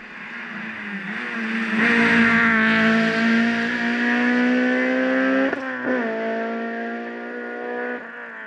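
Rally car engine at full throttle on a gravel stage, its pitch climbing steadily as it comes on, broken twice in quick succession about five and a half and six seconds in, then holding before falling away near the end.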